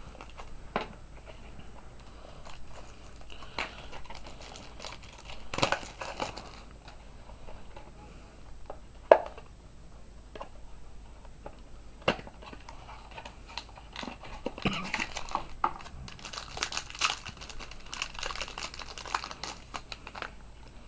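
A trading-card pack being opened and its cards handled: bursts of crinkling and tearing wrapper with scattered sharp clicks, the crinkling densest in the last third.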